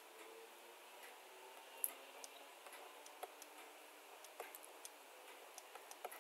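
Faint, irregular taps and clicks of a stylus on a drawing tablet while a structure is being drawn, with one louder tap about two seconds in.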